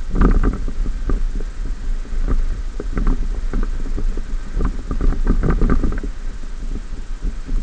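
2014 Ford F-150 pickup driving on a sandy off-road track: a steady low rumble with irregular knocks and rattles, in clusters, as it runs over uneven ground.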